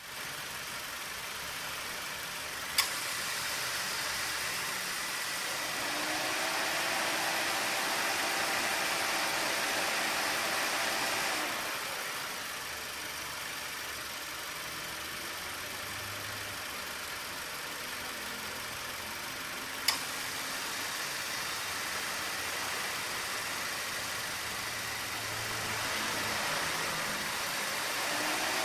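2018 Subaru Forester idling with the air conditioning on, its A/C compressor cycling on and off. There is a steady running hum with two sharp clicks, about three seconds in and about twenty seconds in, and a humming tone that swells and fades between them. The compressor runs with no abnormal noise, its fault repaired.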